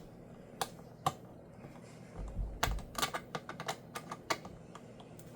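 Irregular light clicks and taps from working on an opened MacBook with a precision screwdriver: a couple of single clicks, then a dull bump and a quick cluster of clicks from about two and a half to four and a half seconds in.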